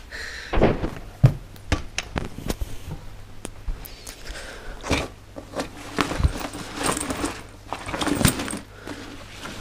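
Rustling and knocking as a bag is packed by hand, clothes and a football pushed into a backpack, with scattered clicks and bumps throughout.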